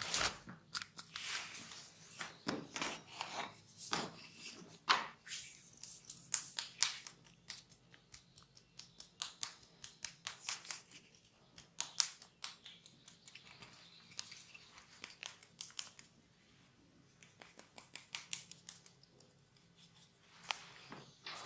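A barber's hands massaging: a run of quick, crisp rubbing and scratching strokes on hair and skin, several a second with a short lull about two thirds of the way through.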